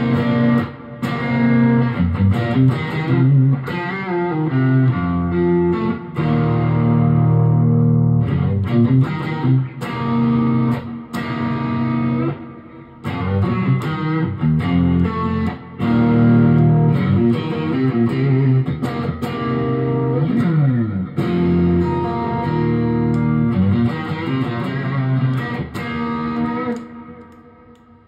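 Electric guitar played through a Tone City King of Blues overdrive pedal: phrased lead lines with brief pauses and a sliding note about twenty seconds in, the last note dying away near the end.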